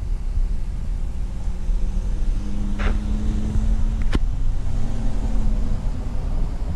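Low steady rumble of road traffic, with a vehicle's low hum passing through. About three seconds in there is a short higher sound, and a single sharp click comes just after four seconds.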